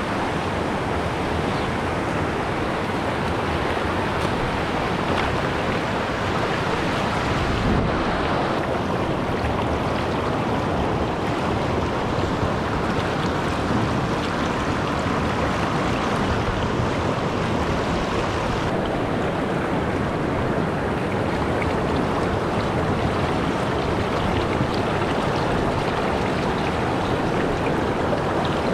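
Steady rushing of a small mountain stream tumbling over rocks.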